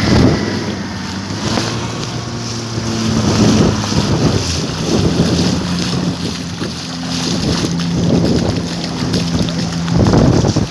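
A motor vehicle's engine running with a steady hum whose pitch shifts about halfway through, over the rumble of wind buffeting the phone's microphone, with a loud gust near the end.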